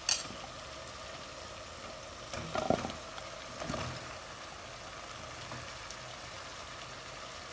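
Chicken frying in a pan with a steady sizzle. A few knocks and clatters break in, the loudest a little under three seconds in and a smaller one about a second later, as vegetables go into the pan.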